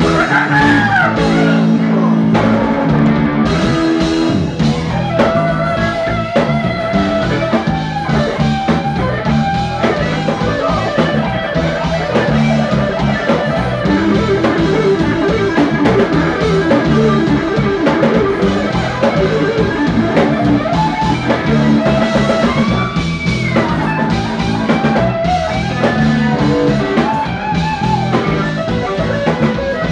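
Live funk band playing a groove: electric guitar, bass guitar, organ and drum kit.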